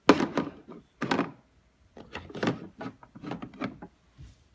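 Hard plastic toy dishes being knocked and clattered by a toddler: a series of sharp knocks, the two loudest near the start and about a second in, then a quicker run of lighter clatters.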